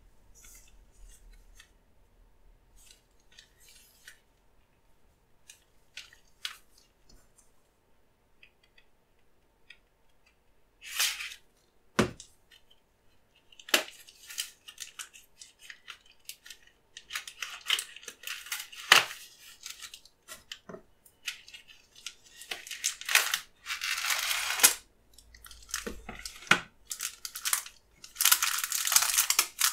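Gloved hands handling and opening a small cardboard box of plasticine: faint taps and clicks at first, a sharp knock about twelve seconds in, then rustling and scraping of cardboard. Near the end, the plastic-wrapped pack of sticks is pulled out and its wrapper crinkles.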